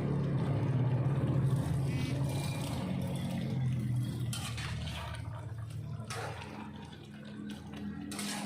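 Soy-sauce chicken liquid bubbling and sloshing in a cooking pan, with a few short knocks of a utensil against the pan.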